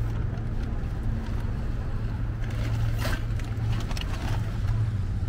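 A car engine idling with a steady low hum, under the rustle of bags being packed into an open car boot. There is a single sharp knock about three seconds in.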